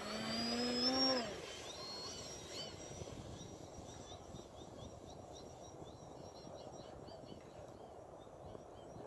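A foam RC plane's motor and propeller whining close by, the pitch rising slightly, then dropping and fading away about a second in as the plane passes and moves off. After that a faint high whine wavers up and down over steady wind noise.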